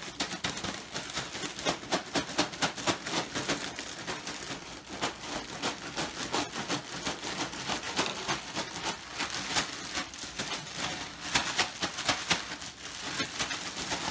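Clear plastic bag of buttered popcorn being shaken hard, the plastic crinkling and rustling with the popcorn tumbling inside as the butter and mochi-crunch-and-nori seasoning are mixed in.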